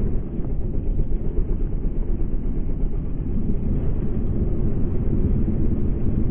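Steady, dull low rumble of a Yamaha Sniper 150 motorcycle under way, its engine and the riding noise blended into one muffled roar with no clear engine note.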